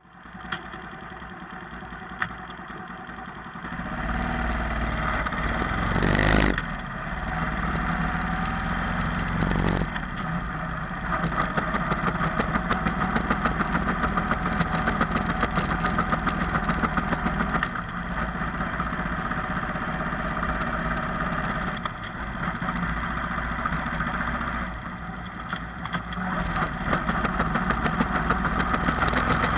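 Honda CGL125 motorcycle's single-cylinder engine running, with its transmission making the abnormal noise of a failing third gear. The sound steps up about four seconds in, surges briefly a couple of seconds later, and rises and falls several times after that.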